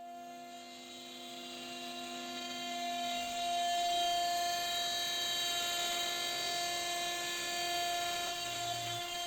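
CNC router spindle running with a steady high-pitched whine and overtones, fading in at the start and growing louder over the first few seconds.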